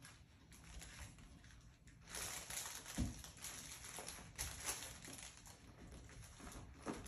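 Mini goldendoodle puppies playing with their toys: rustling and crinkling as they chew and shove them about, and soft patter of paws on the floor. The noise grows louder about two seconds in, with a light thump about a second later.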